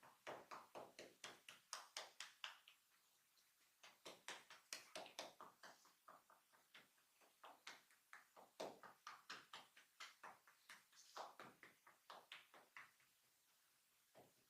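Rapid percussive hand tapping on a person's head during a head massage, about five quick taps a second, in runs broken by short pauses.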